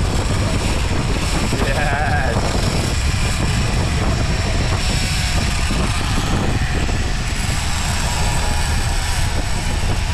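Sportfishing boat's engine running steadily under way, with the rush of water from the wake. A short wavering pitched sound comes about two seconds in.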